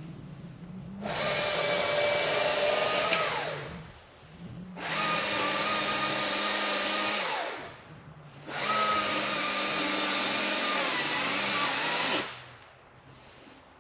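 Stihl MSA 220 battery chainsaw running in three bursts of a few seconds each, its electric motor whining steadily and winding down in pitch after each one. A steady low hum runs beneath until near the end.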